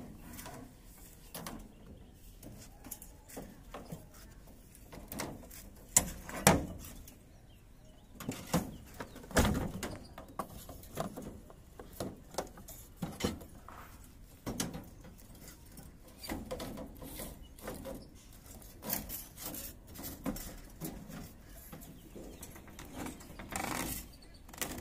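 Irregular knocks, taps and handling sounds from PVC electrical conduit and fittings being worked on slab formwork, with the loudest knocks about six and nine seconds in.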